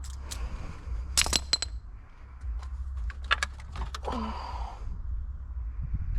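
Metal items clinking and jangling against each other, with a bright ringing cluster of strikes about a second in and a few more light clicks around three seconds, over a steady low hum.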